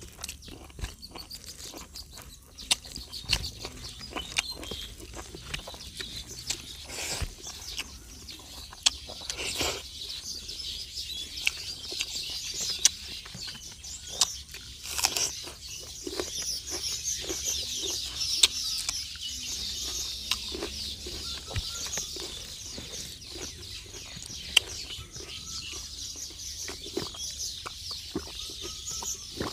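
Close-up eating sounds: wet lip smacks, chewing and fingers working rice and liver curry on a banana leaf, in sharp short clicks. Constant high chirping runs underneath.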